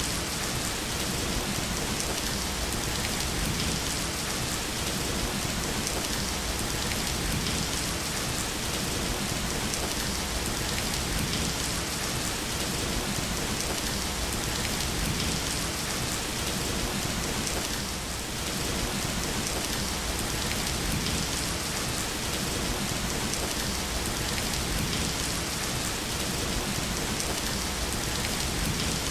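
Steady rain falling in a dense, even hiss, with a brief slight lull about eighteen seconds in.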